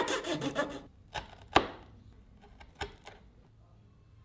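Quick rasping strokes of a hand saw cutting through a wooden handle, stopping about a second in, followed by four sharp wooden knocks, the loudest about halfway through.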